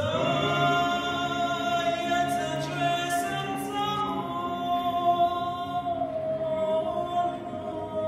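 A small male a cappella vocal group, a Croatian klapa, singing slow, long-held chords in close harmony. The singing comes in abruptly at the start.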